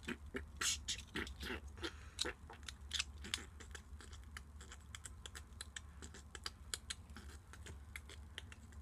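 Small plastic Lego bricks clicking and clattering in the hands as they are handled and snapped together, a quick irregular run of little clicks.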